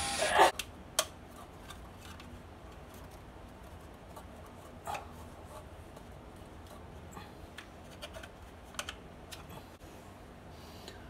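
Cordless drill running in a short burst that stops about half a second in, then a sharp click; after that, faint scattered clicks and rustles of hands handling wiring and fittings at a wall electrical box.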